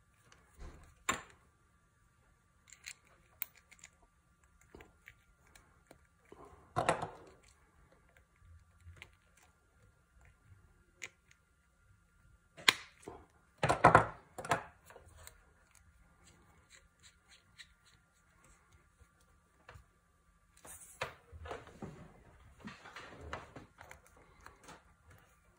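Plastic MC4 solar-cable connector parts being handled: a crimped metal pin pushed into the housing with pliers, giving scattered sharp clicks and knocks, the loudest cluster a little past halfway. Near the end there is more rustling and clicking as the male and female connectors are fitted together.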